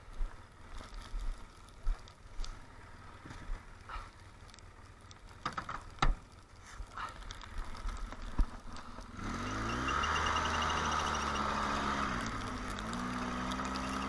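Scattered knocks and crunches, then about nine seconds in the Polaris Sportsman 700 Twin ATV's twin-cylinder four-stroke engine rises in revs and runs steadily as it pulls away in the snow. Its pitch dips briefly just before the end and then climbs again.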